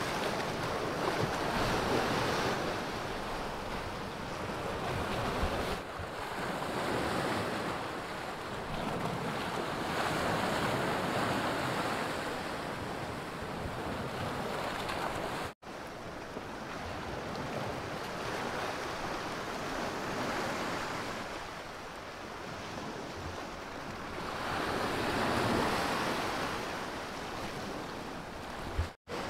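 Sea surf breaking on a rocky shore, a steady rush that swells and eases every few seconds. It drops out for an instant twice, about halfway through and near the end.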